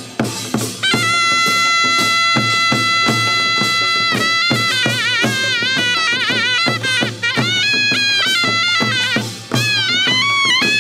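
Korean pungmul band playing: a taepyeongso (double-reed shawm) holds a long, high, piercing note about a second in, then moves into a wavering, ornamented melody, over steady beating of buk and sogo drums.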